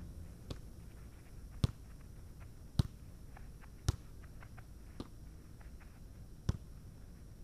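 Volleyball being passed back and forth between two players: sharp slaps of hands and forearms on the ball, six or seven in a row at roughly one a second.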